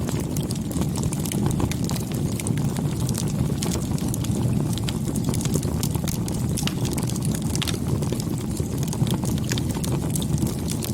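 Wood fire crackling: irregular sharp pops and snaps over a steady low rumble of flames.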